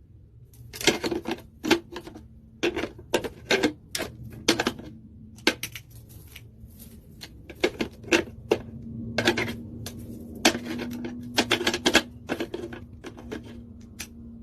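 Irregular sharp clicks and taps, some single and some in quick clusters, like typewriter keys. A faint steady hum comes in about halfway through.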